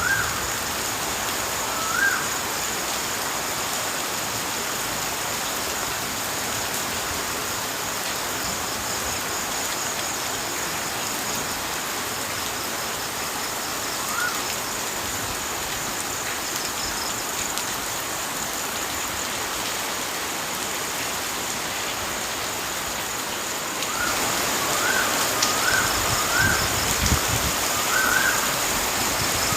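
Steady rush of running water, growing louder about three-quarters of the way through, with a bird's short rising-and-falling chirps now and then and several in quick succession near the end.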